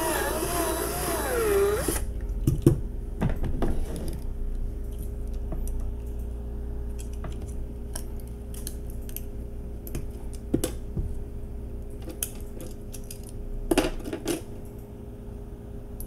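Power drill running with a wavering whine as its bit drills out the rivet of a diecast toy car, cutting off about two seconds in. Then scattered small clicks and clinks as the metal body and plastic base are worked apart by hand.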